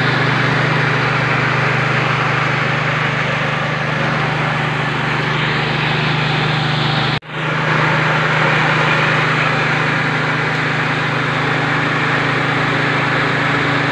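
Mini rice mill (KD 820 Pro 4-in-1 huller, polisher and separator) running steadily under load with a loud, even mechanical drone while milling rice. The sound drops out for a moment about seven seconds in, then resumes unchanged.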